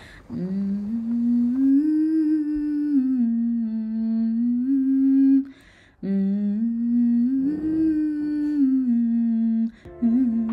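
A voice humming a slow melody in two long, smoothly gliding phrases, part of a Telugu song. Instrumental music comes in near the end.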